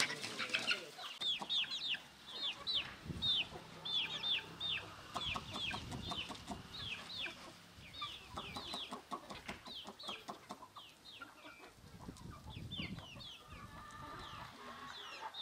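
Flock of free-range indigenous chickens, with a rapid run of short, high, falling peeps over lower clucking.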